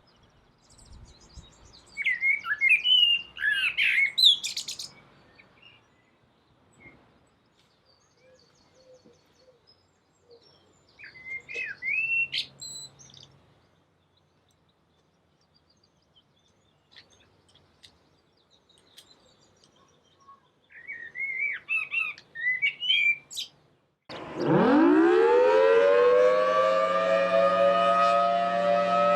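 Birds chirping in three short bursts with quiet gaps between. About 24 seconds in, a civil defence siren winds up from a low pitch to a steady, loud wail.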